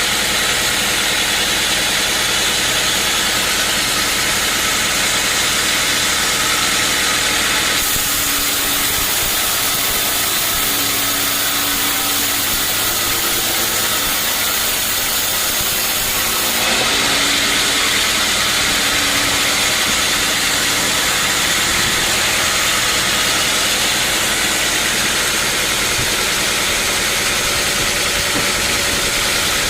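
Sawmill machinery running steadily, with a sharper hiss in the high end from about eight to sixteen seconds in.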